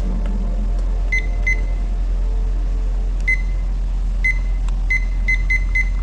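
Digital kitchen timer giving short, high button-press beeps as its hour and minute buttons are tapped to set an alarm time: about eight beeps, two in the first second and a half, then several in quick succession near the end. A steady low hum runs underneath.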